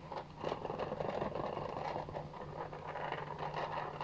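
Paint-pouring canvas spinner turning, a steady mechanical whirring rattle with fine rapid ticks.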